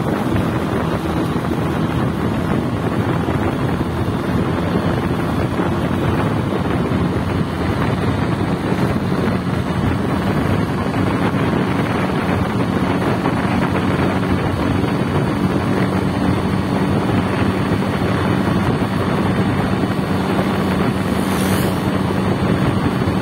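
Motorcycle engine running at a steady cruising speed, with wind rushing over the microphone. A brief high squeak comes near the end.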